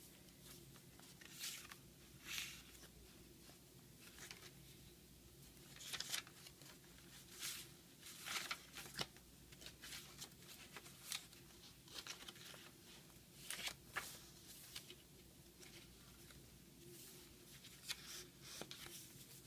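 Paper pages, tags and inserts of a thick handmade journal rustling and swishing as they are turned and handled, in short irregular swishes every second or so over a faint steady low hum.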